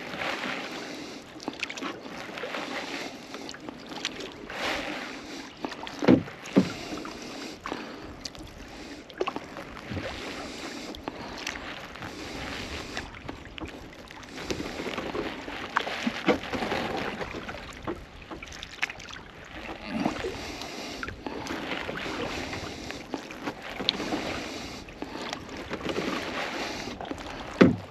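Kayak paddling: the double-bladed paddle dipping and pulling through lake water in repeated strokes, with splashes and drips. There are a few sharp knocks, the loudest about six seconds in.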